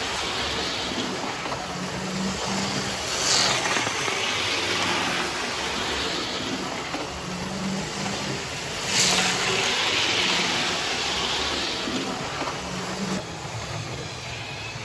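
Model diesel locomotive hauling coaches along the track: a steady rumble with a low hum, getting louder about three seconds in as it runs close by.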